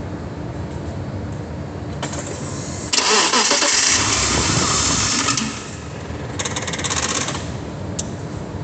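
An engine being cranked over, loud for about two and a half seconds from about three seconds in. About a second later comes a shorter burst of rapid pulsing, the odd noise heard after cranking. A steady low rumble runs underneath.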